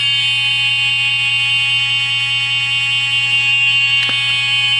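Talking Ninja Turtle action figure's sound chip stuck on one held electronic note while its arm is kept raised: a loud, steady, buzzy tone that does not break, over a low hum, with a small click about four seconds in.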